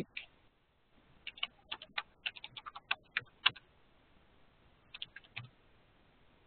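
Typing on a computer keyboard: a quick run of about a dozen keystrokes, then a short burst of a few more about five seconds in.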